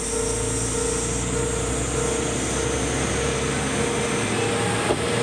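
Single diesel railcar, Heisei Chikuho Railway car 408, drifting slowly into a station with its engine running steadily, and one sharp click near the end.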